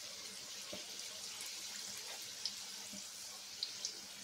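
Kebab rolls deep-frying in hot oil: a steady sizzle, with a few light crackles in the second half.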